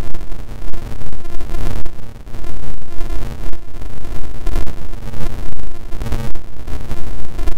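Helicopter running close overhead, loud and steady with an uneven pulsing beat.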